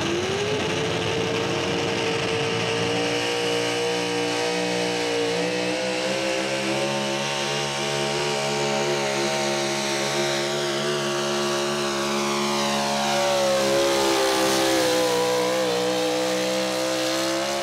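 Pro stock 4x4 pulling truck's engine running flat out under load as it drags a weight-transfer sled. Its pitch climbs right at the start, then holds high and steady. It gets loudest near the end as the truck comes close by.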